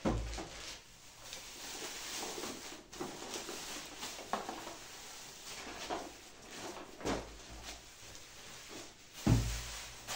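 Plastic shipping bags and mailer parcels rustling as they are handled, with a few dull thumps as packages are set down on a table, the loudest near the end.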